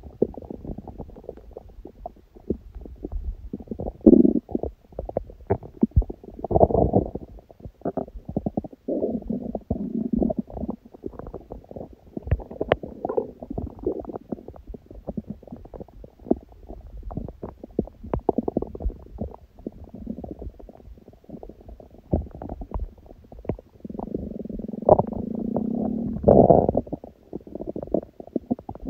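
A hungry stomach growling, recorded close up: low rumbles mixed with a steady run of small rattling gurgles and pops, with a longer drawn-out growl near the end.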